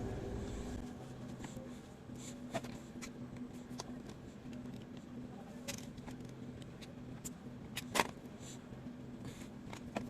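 Scattered small clicks and light scrapes of hand tools on small plastic parts during an earbud teardown, over a faint steady hum; the sharpest click comes about eight seconds in.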